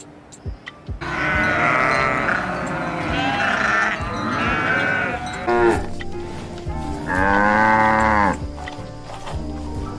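Sheep bleating: several long, pitched bleats, one after another, then another long bleat about seven seconds in, over background music.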